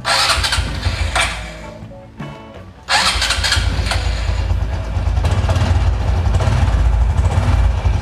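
Honda RS125 Fi's single-cylinder four-stroke engine being started: short cranking bursts that die away, then about three seconds in it catches and settles into a steady idle.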